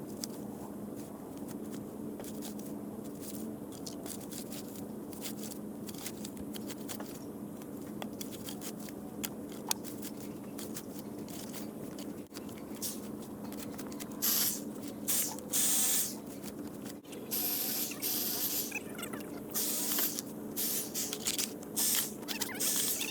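John Deere tractor backhoe engine idling with a steady hum. In the second half, repeated short bursts of scraping, hissing noise from shovels cleaning loose dirt out of the trench.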